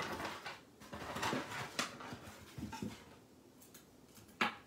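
Unboxing handling noises: rustling and light knocks as a cardboard box is handled and small plastic accessories are set down on a countertop, then one sharp click near the end as a part is put down.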